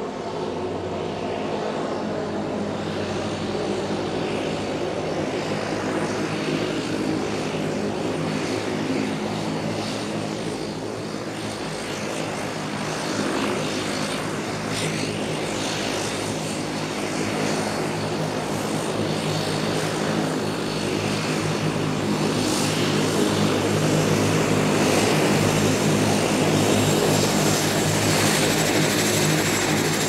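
Airplane engine droning steadily: a held hum of engine tones under a rushing air noise, growing a little louder about two-thirds of the way through.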